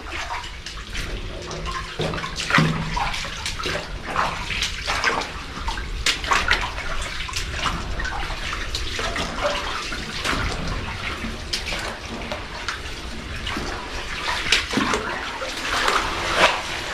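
Water splashing and sloshing in irregular bursts, over a steady watery wash.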